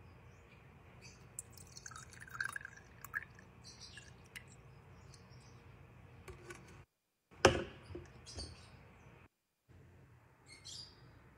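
Liquid poured into a glass tumbler, with short high chirps and splashes. About seven and a half seconds in comes a single sharp knock, the loudest sound.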